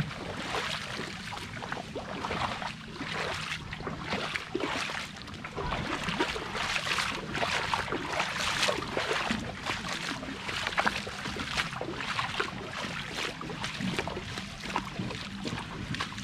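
Water sloshing and splashing around a small fishing boat, an irregular crackly wash of small splashes, with a faint steady low hum underneath.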